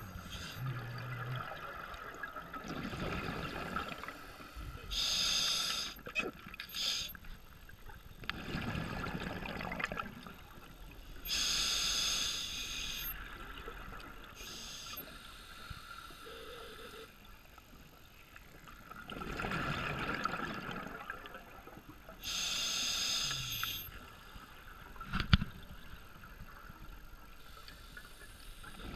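Scuba diver breathing through a regulator underwater: three or four slow breaths, each a hissing draw of air through the regulator alternating with a rush of exhaled bubbles. A single sharp knock comes near the end.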